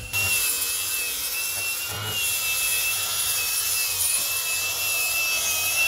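Angle grinder with a sanding disc running, its motor giving a steady high whine that wavers slightly under load, while the disc rubs and scours across weathered wooden deck boards to sand them bare.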